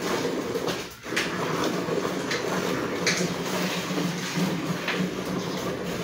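A cow being milked by hand: jets of milk squirting into a metal bucket already part full of milk, in short squirts at an uneven pace. A steady low hum runs underneath.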